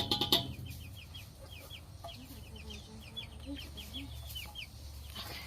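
Penned chickens making soft low clucks under a steady run of short, high, falling peeps, about three a second. A brief clatter opens it.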